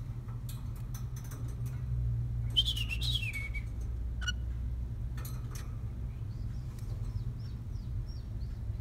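Pet cockatiel calling from its cage: one wavering whistled call about two and a half seconds in that falls in pitch, then faint short chirps near the end. A few sharp clicks and a steady low hum lie underneath.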